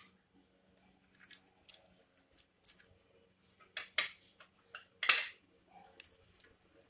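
A utensil clicking and knocking against the metal Instant Pot insert as chopped garlic is dropped in. The taps are scattered, and the two loudest come about four and five seconds in, the second ringing briefly.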